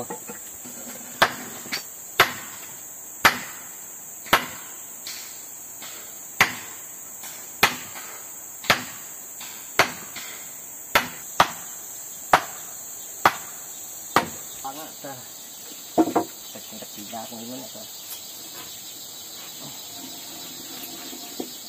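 A tool striking wood in steady blows, about one a second, which stop around three-quarters of the way through, over a constant high drone of forest insects.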